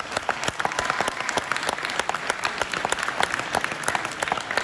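Audience applauding: a dense, steady run of many hand claps.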